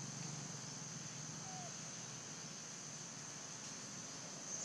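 Outdoor ambience: a steady high-pitched insect drone over a low rumble, with one brief faint call about a second and a half in.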